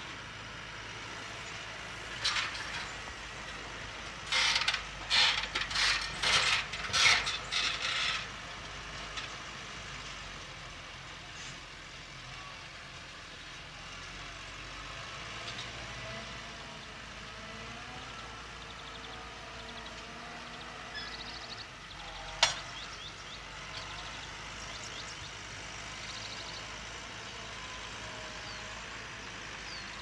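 Case Puma tractor engine running steadily at a distance while its reversible plough is lifted and turned over, with a run of rattling, clanking bursts a few seconds in and a single sharp click later on.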